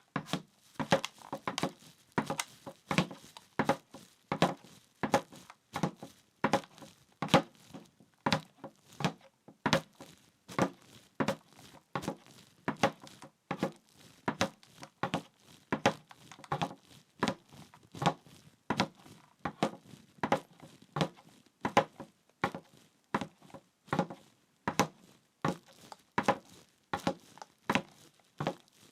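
Footsteps at a steady walking pace, about two steps a second.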